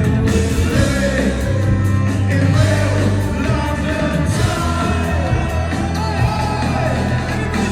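Live band playing, with a singer's voice over a heavy bass line.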